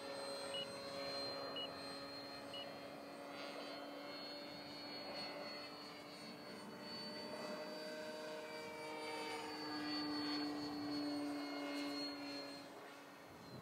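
Electric RC airplane's brushless motor and propeller running in flight, a steady hum with a whine above it whose pitch drifts slightly up and down. It grows louder about ten seconds in, then fades near the end.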